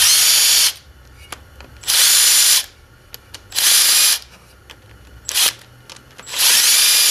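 Cordless drill with a 10 mm socket spinning out the water pump bolts on a Subaru EJ engine. It makes four short runs under a second long, each a whine that rises in pitch as the motor spins up and then holds, with a brief blip between the third and fourth. Small clicks of the socket and bolts come between the runs.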